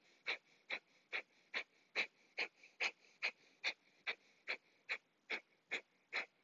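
Breath of fire: a woman's rapid, forceful exhalations through the nose, driven by snapping the belly back, in an even rhythm of about two and a half puffs a second. The quick inhales in between are hardly heard.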